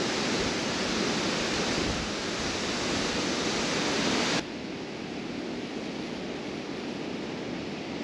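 Wind blowing, a steady rushing noise that drops suddenly to a quieter rush about four seconds in.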